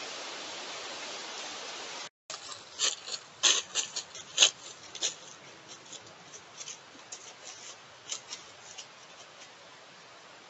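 A steady outdoor hiss cuts off about two seconds in. Then an animal moves in dry leaves close to a trail camera: irregular crisp crackles and clicks, loudest for a few seconds, then thinning out to scattered ticks.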